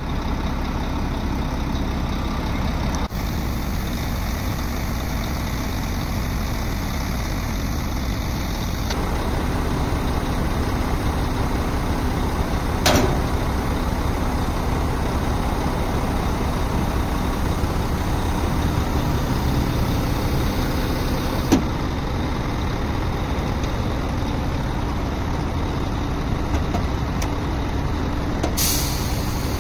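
Forklift engine running steadily at close range, with two sharp knocks, about 13 and 21 seconds in.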